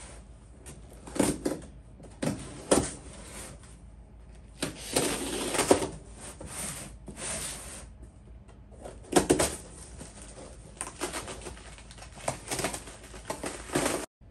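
Cardboard shipping box being cut open with a box cutter and handled: an irregular run of scratchy scraping as the blade slits the packing tape, with a few sharp knocks as the box is turned.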